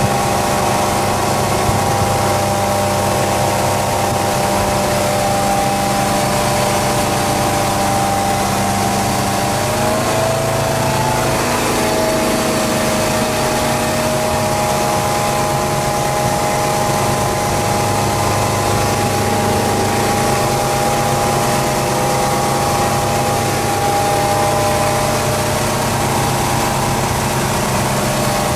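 A 1973 Caravelle fishing boat's rebuilt engine running steadily at low cruising revs while still warming up, heard from inside the wheelhouse over a steady rush of water and wind noise. Its pitch shifts slightly about ten seconds in.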